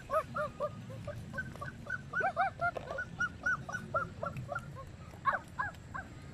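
Many short, arching cries from several small animals, overlapping and repeating several times a second.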